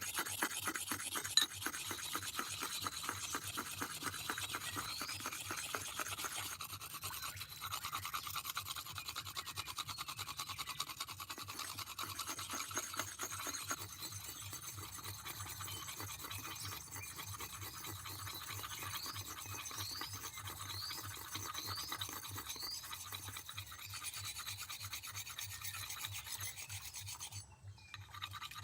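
Rapid, continuous scraping strokes, like a rasp or file worked steadily back and forth, pausing briefly near the end.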